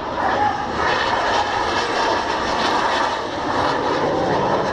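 Jet aircraft engine noise from a display jet flying past, steady and continuous.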